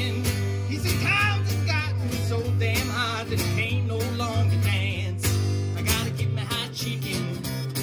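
Live acoustic guitar strummed in a steady country-folk rhythm, with a man singing over it.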